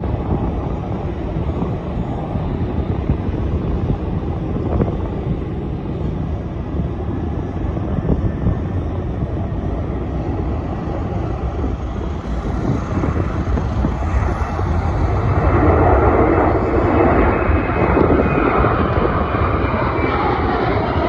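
Jet airliner engines: a steady low rumble that grows louder and fuller about fifteen seconds in.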